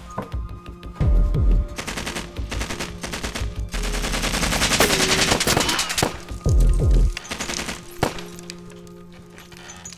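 Rapid gunfire in several bursts, with two deep booming impacts, one about a second in and one near seven seconds, and a last single shot about eight seconds in, over a tense film score.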